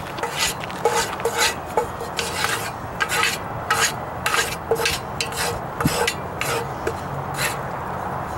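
Wooden spoon scraping around the bottom of a hot, oiled cast-iron Dutch oven: repeated scraping strokes, about two or three a second, with brief squeaks, stopping near the end.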